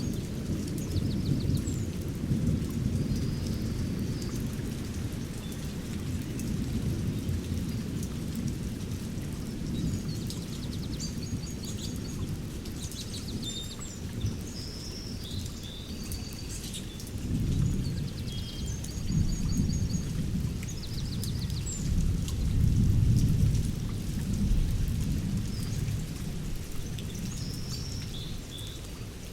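Thunderstorm ambience: low thunder rumbling under steady rain, swelling twice in the second half. Birds chirp repeatedly in short high phrases.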